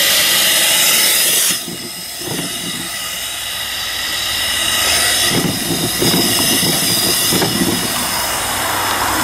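Homemade vertical single-cylinder steam engine (3-inch bore, 4-inch stroke) running on live steam. A loud hiss of steam for about the first second and a half drops to a softer, steady hiss that slowly grows louder. Mechanical knocking and clatter from the running engine comes in around the middle.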